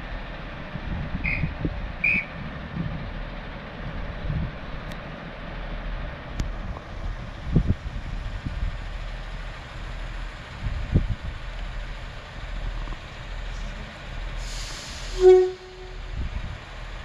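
Class 143 Pacer diesel railbus approaching slowly, a low rumble with gusty wind on the microphone. Near the end comes a burst of air hiss and a short, loud horn toot.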